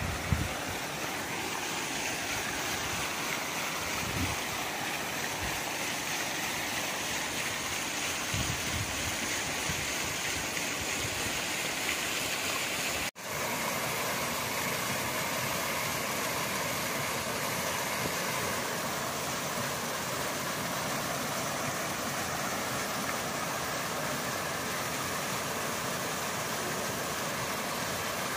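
2 hp four-paddle wheel aerator turning at about 120 rpm, its paddles churning and splashing pond water in a steady rush. The sound cuts out briefly about halfway through.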